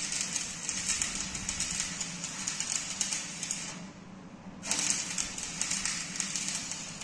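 Electric arc welding on the steel door of a dump truck: the arc gives a dense, steady crackle, which stops for about a second a little past halfway and then starts again. A low steady hum runs underneath.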